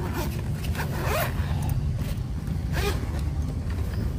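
Zipper on a fabric-covered hard-shell carrying case being pulled open around the case in three main rasping strokes, over a steady low rumble.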